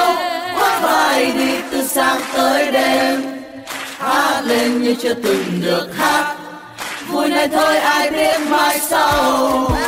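Vietnamese pop song playing, with sung vocals over backing music.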